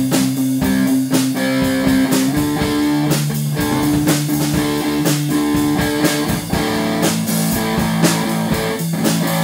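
Electric guitar played through an amplifier: held notes and chords that shift in pitch every second or two, over a regular beat of sharp percussive hits.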